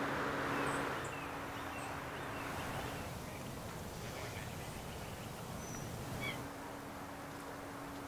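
Outdoor ambience: a steady background noise with a low hum under it, and a few short, high bird chirps scattered through.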